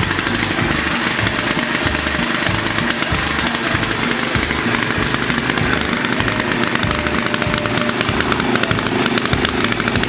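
Freshly rebuilt Wisconsin AKN single-cylinder air-cooled engine running steadily.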